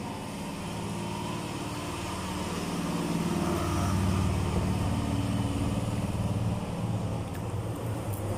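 A motor vehicle engine running close by, growing louder about three seconds in and staying loud.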